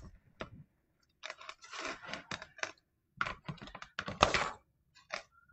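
A silicone spatula scraping and tossing dough pieces around a plastic mixing bowl in short, irregular scrapes and clicks, coating them in the sprinkled cinnamon mix.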